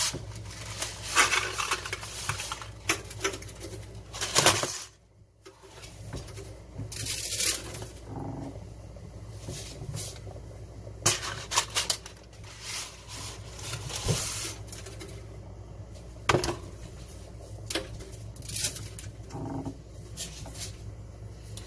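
Dry Creamette angel hair pasta snapped in half by hand and dropped into a pot of boiling water: irregular sharp snaps and crackles over a steady low hum.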